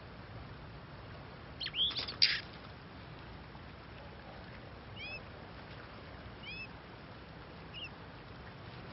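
Oriental magpie-robins calling: a loud, harsh burst of calls about two seconds in, then three short chirps, each a quick pair of notes, spaced about a second and a half apart.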